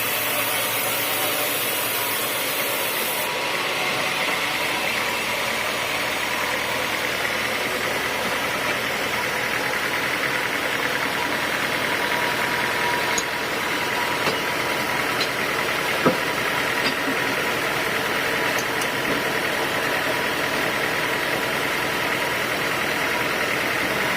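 Sawmill machinery running steadily, with a few short knocks partway through.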